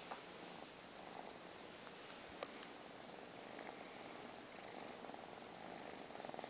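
A pet cat purring softly and steadily, a sign of a contented cat, with a couple of faint clicks.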